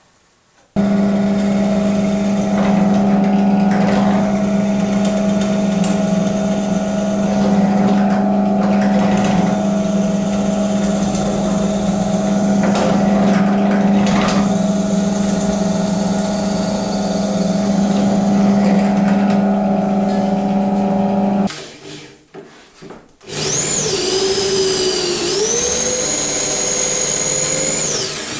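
Benchtop drill press running with a steady hum as its bit bores dowel holes in a softwood board, the cutting heard as scraping over the motor; it stops about three quarters of the way through. After a short pause a handheld electric drill spins up with a high whine that dips, rises and holds near the end.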